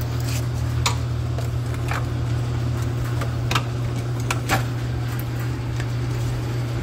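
A handful of sharp metallic clicks and knocks as a brake caliper and pads are pried and worked loose from the caliper bracket against the rotor, over a steady low machine hum.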